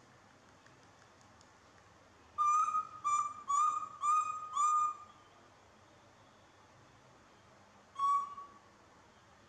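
Baby macaque cooing: five short, clear, high calls in quick succession, then one more a few seconds later. They are the plaintive calls of an infant left alone.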